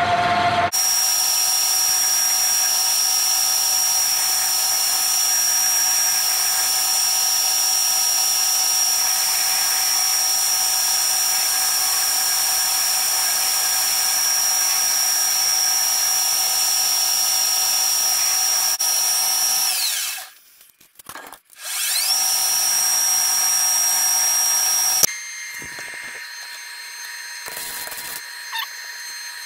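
Pratt & Whitney metal lathe running with a steady high whine while turning a cone. About twenty seconds in the whine falls away as the spindle stops, then climbs back as it restarts. Near the end it gives way to a quieter arc-welding crackle.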